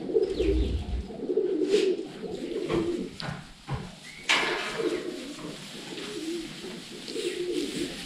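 Pigeons cooing over and over in a barn, low wavering calls with no break between them, and a brief rustle about four seconds in.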